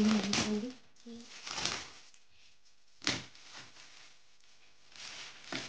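Plastic and cellophane gift wrapping rustling and crinkling as a present is handled and unwrapped, with a sharp click about three seconds in. A short voice sound right at the start.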